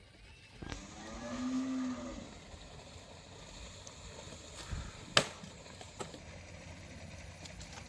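A single drawn-out animal call, cow-like lowing, about a second and a half long, followed a few seconds later by one sharp knock. No chainsaw is running.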